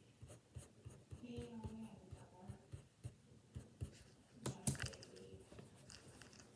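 Faint scratching of a pencil and fingertip rubbing on sketchbook paper while shading and blending a drawing, with one louder rustle about four and a half seconds in.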